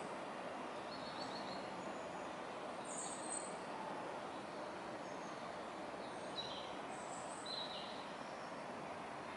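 Steady outdoor background noise with a few short, high bird chirps scattered through it.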